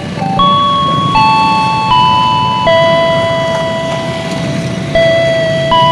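Slow electronic chime melody of single bell-like notes, each starting sharply and fading, some held for about two seconds. Under it is the steady hum of motorcycle traffic.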